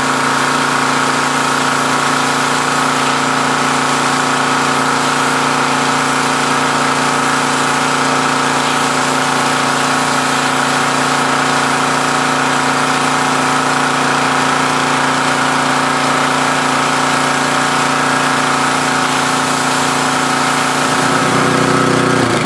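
Gas-powered pressure washer's small engine running steadily under load, with the hiss of its high-pressure water spray from the 20-degree nozzle on cement. A little before the end the engine note drops.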